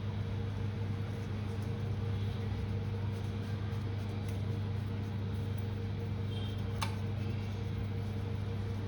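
Steady low electrical hum from a machine or fan, with a single sharp click about seven seconds in.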